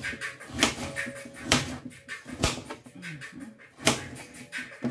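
Kitchen knife chopping through a hard raw carrot onto a plastic cutting board: about five sharp knocks, roughly a second apart.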